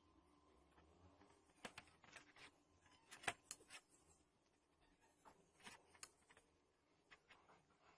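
Faint, scattered small clicks and taps, the sharpest about three seconds in.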